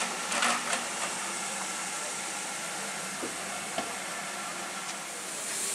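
Standing steam locomotive hissing steam steadily, with a louder gust of steam about half a second in and a couple of sharp metallic clicks later on.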